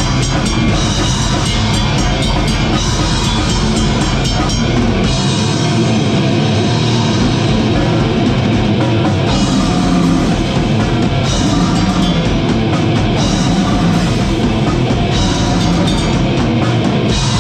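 Goregrind band playing live at full volume: heavy rock music with fast, busy drum-kit hits. The deepest bass drops away about five seconds in and comes back near the end.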